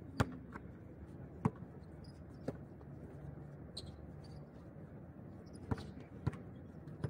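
A basketball bouncing on a hard outdoor court: about five sharp, irregularly spaced thuds, with a gap of about three seconds in the middle.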